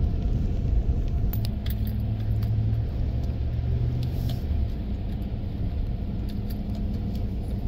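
A car driving on a snow-covered road, heard from inside the cabin: a steady low rumble of engine and tyres, with a few light clicks and rattles.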